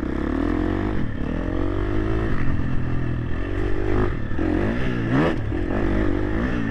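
Motocross bike engines running, with the pitch rising and falling sharply several times as the throttle is worked, over a steady low engine drone.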